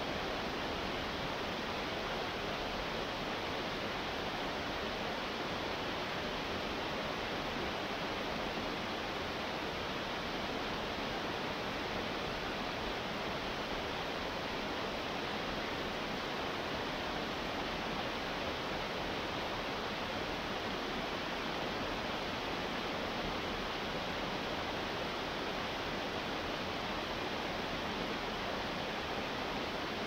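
Small cascading waterfall: water rushing steadily over rocks, an even, unbroken sound with no changes.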